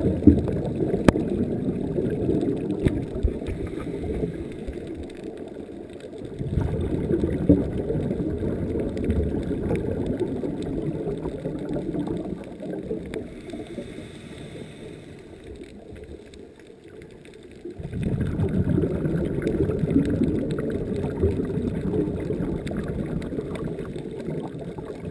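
Muffled rushing and gurgling of water moving around an underwater camera. It comes in three long stretches with a quieter spell in the middle.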